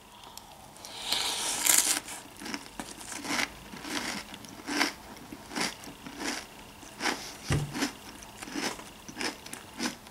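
A person biting into and chewing a big mouthful of crunchy Lucky Charms Honey Clovers cereal in milk. A loud crunch comes about a second in, then steady chewing crunches, roughly one and a half a second.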